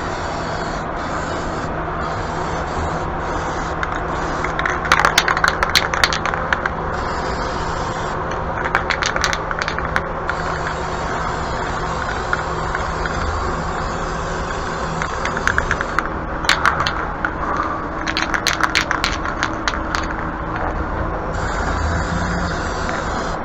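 An electric fan running steadily with a low hum, broken by several short spells of rapid rattling clicks.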